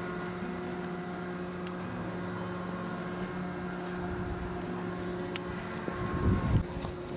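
Steady mechanical hum holding several even tones, like a running engine or machine, with a burst of low rumbling about six seconds in.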